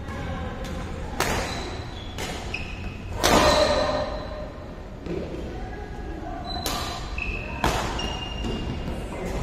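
Badminton rackets striking a shuttlecock in a doubles rally: a string of sharp smacks roughly once a second, the loudest about three seconds in, with a pause of a few seconds after it. Short high squeaks of court shoes on the floor between the hits.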